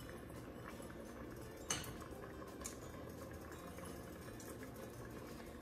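Steel pot of chicken broth simmering on the stove, a faint steady bubbling hiss, with a sharp light click about a second and a half in and a fainter one a second later as noodles go in from a bowl.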